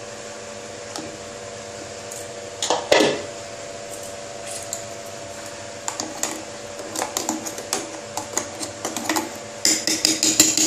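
A spoon stirring and clinking against the inside of a stainless-steel mixer-grinder jar of blended green-mango juice: one knock about three seconds in, then a run of quick metallic clinks from about six seconds in that grows busier near the end. A faint steady hum runs underneath.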